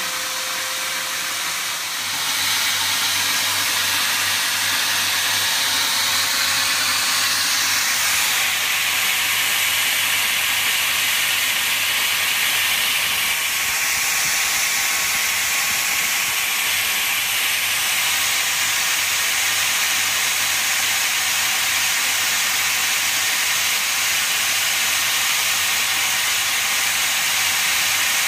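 Corded electric drill running steadily, heard as a loud, even hiss that starts about two seconds in.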